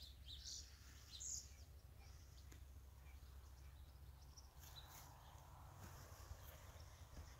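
Near silence: faint outdoor ambience with a steady low rumble and a few faint, high bird chirps, several in the first second or so and more after about four and a half seconds.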